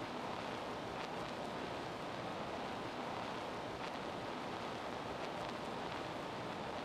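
Steady, indistinct gymnasium noise during a basketball game: crowd and players blurred into an even hiss, with a few faint knocks.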